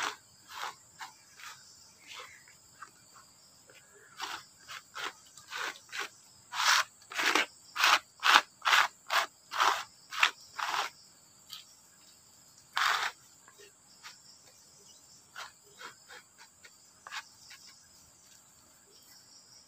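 A small hand tool scraping in short strokes across a wooden slab, working filler into a crack; the strokes come about two a second and are loudest around the middle. A steady high insect drone runs underneath.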